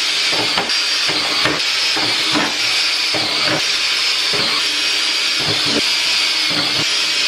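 Cordless drill running as it bores holes through a plexiglass template sheet: a loud, steady hiss with repeated uneven pulses.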